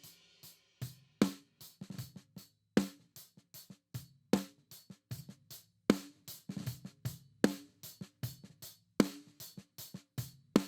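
Close snare-top microphone recording of a drum kit playing a steady groove, played back through a compressor. A loud snare backbeat lands about every one and a half seconds, with lighter hits, kick and hi-hat between, and the playback stops near the end.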